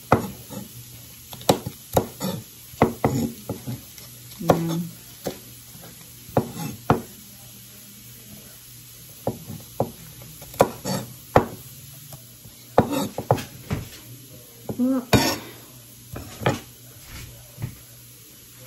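Santoku knife chopping bok choy stems on a wooden cutting board: irregular sharp knocks of the blade on the board, in quick clusters separated by short pauses, quieter near the end.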